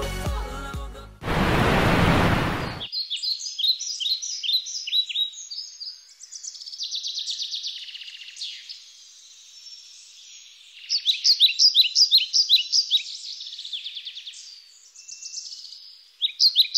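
Birds chirping in quick repeated series of short, high calls, loudest after the middle. Near the start, music ends and a short burst of rushing noise sounds for about a second and a half before the birds.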